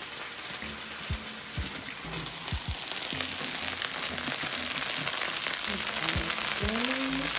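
Thin-sliced top sirloin frying in a skillet, a steady crackling sizzle that comes up about three seconds in and grows louder. A few soft thumps sound before it.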